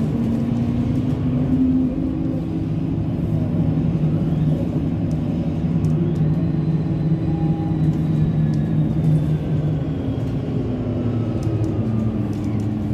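City bus engine running as the bus drives along, heard from inside the passenger cabin: a steady drone whose pitch shifts a few times as it changes speed, with faint clicks and rattles.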